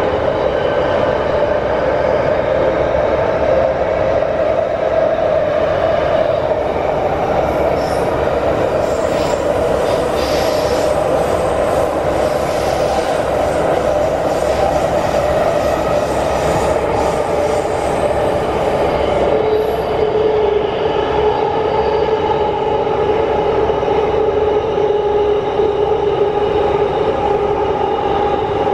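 Wagonmash series 81 metro train (81-572.2/81-573.2 cars) running through the tunnel, heard from inside the car: a steady rumble and rush with a motor whine that drops lower about two-thirds of the way through. High wheel squeal comes in through the middle stretch.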